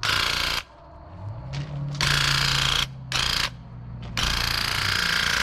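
Handheld electric paint sprayer triggered in four bursts of a few tenths of a second to about a second each: the pump buzzes and the spray hisses, then stops between passes.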